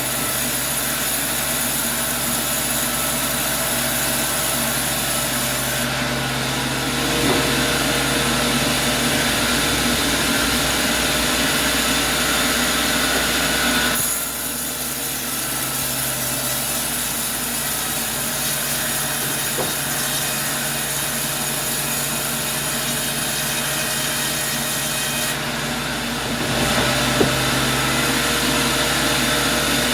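Sawmill saw running and cutting through wood. The sound steps up about 7 seconds in, drops back about halfway through, and rises again near the end.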